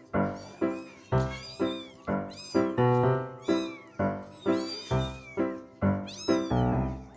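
Kittens mewing repeatedly in high, thin rising-and-falling calls over background music with a steady beat of about two notes a second.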